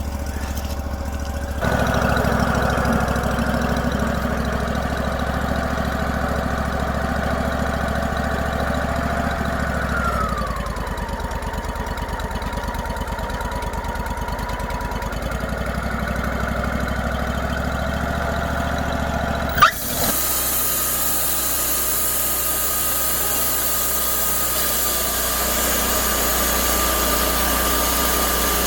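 A machine's engine running steadily. Its pitch drops as it eases off about ten seconds in, and a sharp click near twenty seconds is followed by an abrupt change to a smoother, hissier engine sound.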